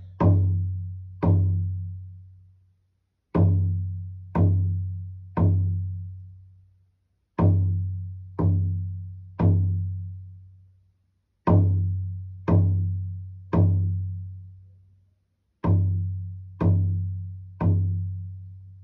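Shamanic hand drum struck in sets of three beats about a second apart, with a pause of about two seconds between sets. Each beat gives a deep tone that rings and slowly dies away.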